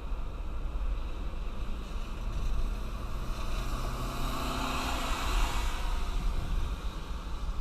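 Car driving on a rain-soaked road in heavy rain: a steady low rumble of road and rain noise, with a louder wet hiss that swells and fades around the middle.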